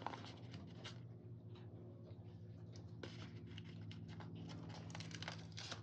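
Faint crinkling and ticking of a small paper sticker being handled and peeled from its backing by hand: soft, irregular clicks over a low steady hum.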